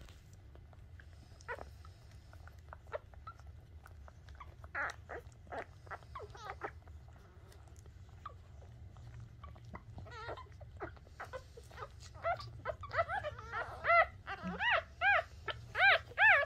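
Newborn Shih Tzu puppies squeaking and whimpering while nursing. At first there are scattered short squeaks and clicks, then from about twelve seconds in a run of louder squeals, each rising and falling in pitch.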